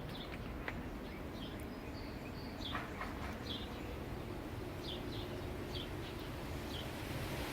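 Wind rumbling low and steady, with a small bird chirping several times in short high notes.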